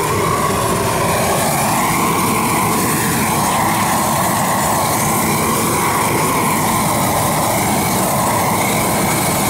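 Propane weed-burner torch burning steadily and loudly, its flame held on a frozen metal water pipe to melt the ice inside.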